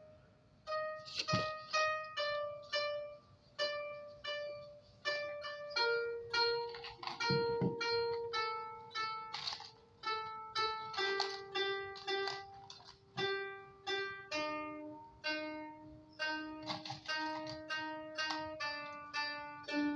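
Koto played as a slow melody of single plucked notes, about one to two a second, each ringing and fading. The line steps down in pitch through the middle of the passage and climbs again near the end.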